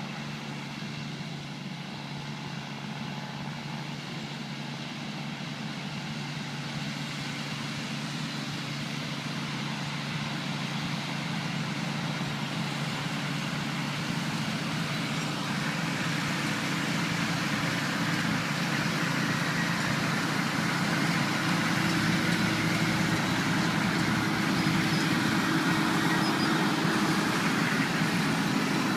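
Tractor pulling a round hay baler, engine and machinery running steadily and growing louder as it draws closer.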